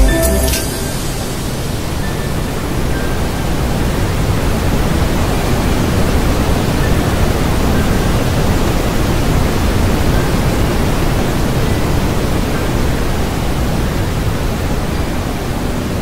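Waterfall: a steady, even rush of water pouring down.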